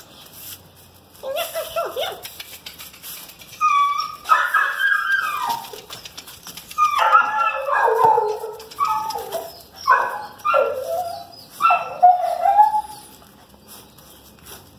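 Pit bull puppies barking and yelping in play as they go after a broom, in short bursts at first, then a longer run of yaps in the second half.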